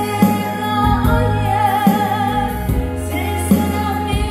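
A slow Korean ballad sung with vibrato over backing accompaniment, in G-sharp minor; the lyric line is "길가에 쓸쓸함이 쌓이네".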